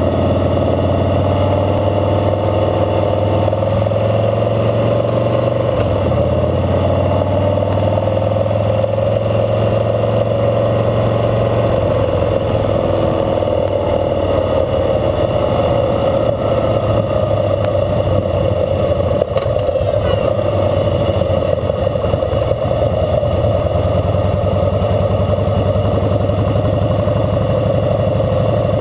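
Harley-Davidson Fat Boy Lo's V-twin engine running steadily as the motorcycle rolls along at a slow, even parade pace, heard from the bike itself with continuous road and wind noise.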